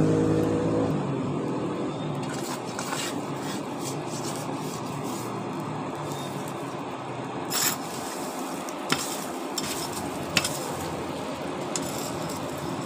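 Charcoal forge fire burning hard with air blown through it, a steady rush, as steel oil-palm sickle blades are heated to red heat for hardening in oil. A few sharp metal clinks come in the second half as the blades are shifted in the coals.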